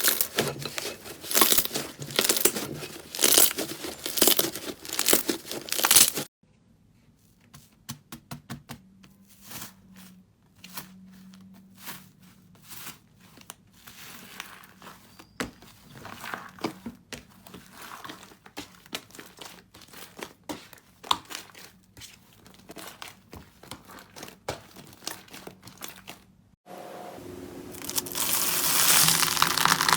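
Slime being squished and pressed by hand: loud, repeated crackling and crinkling squishes for about six seconds, then after a sudden cut a quieter run of small sticky clicks and pops, and near the end a louder, denser crackling starts.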